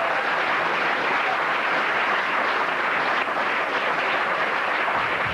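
Theatre audience applauding, a steady dense clatter of clapping.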